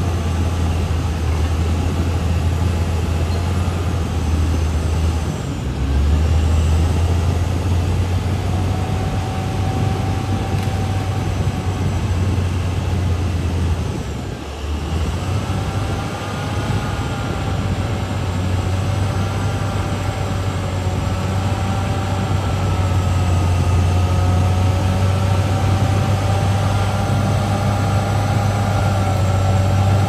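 CAT D6R XL bulldozer's diesel engine running steadily with a deep hum. Its note shifts about five seconds in and briefly dips about halfway through, and a wavering higher whine runs over it in the second half.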